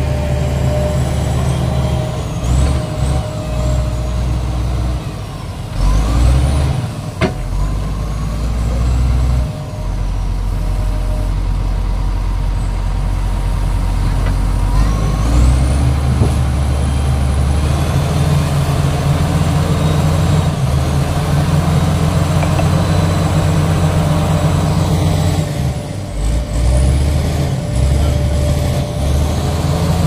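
Heavy diesel engine of a Sany SY215C hydraulic excavator running and pulling harder and easing off in turn as its bucket digs mud, with thin high hydraulic whines rising and falling over it. A single sharp click comes about seven seconds in.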